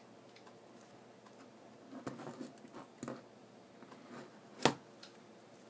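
Scattered small clicks and light taps of hand tools and tiny parts being handled during iPhone 4 disassembly, with a cluster about two seconds in and one sharper, louder click a little before the end.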